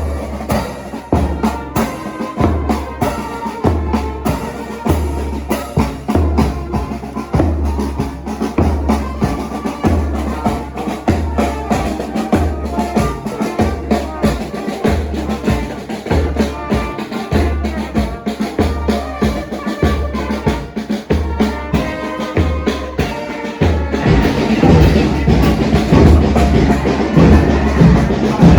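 Band music with a steady bass-drum beat and held horn-like tones over it; it gets louder and fuller near the end.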